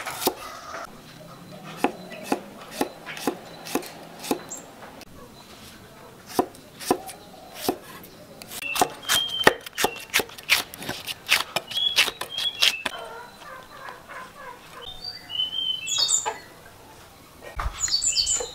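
Kitchen knife slicing shallots and then red chilies on a wooden chopping board, each stroke a sharp knock of the blade on the wood. The strokes come singly at first and then faster and closer together about halfway through.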